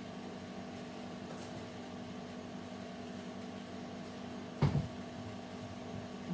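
A steady mechanical hum of a running appliance, with one brief knock a little past halfway.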